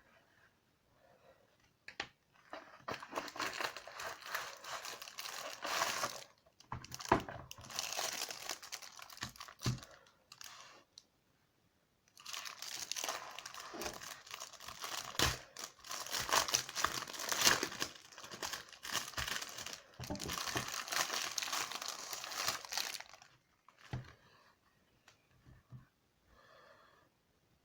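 Crinkling and tearing of packaging wrap as the keyboard is unwrapped, in several stretches of dense crackling with short pauses, the longest lasting about ten seconds.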